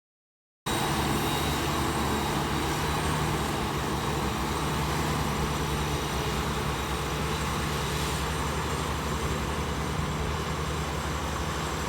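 Engine of heavy harvesting machinery running steadily, cutting in suddenly about a second in.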